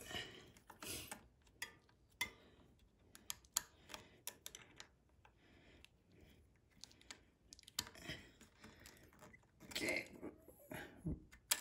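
Scattered light clicks and ticks of a hex key and fingers working the cable clamp bolt of a mechanical disc brake caliper, and the steel brake cable being pulled loose. The clicks come in a busier cluster just after the start and again about ten seconds in.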